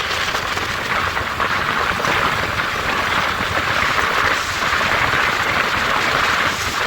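Steady rush of wind and road noise from a vehicle moving at speed, an even hiss without breaks.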